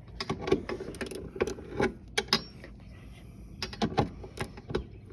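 Hand ratchet clicking in short, irregular runs as bolts are tightened, with metal tool clinks.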